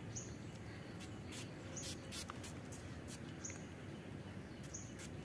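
Several short hissing spritzes from a small pump spray bottle of mosquito repellent, bunched close together, with a bird's high, falling chirps a few times behind them.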